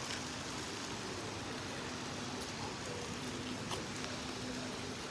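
Steady rain falling, an even hiss with a few scattered drop ticks, and a faint steady hum underneath from about two seconds in.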